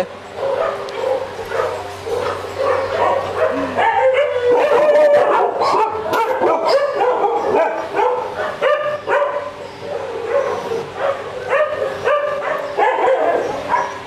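Many dogs barking and yelping over one another in a rescue kennel, a continuous chorus of overlapping calls.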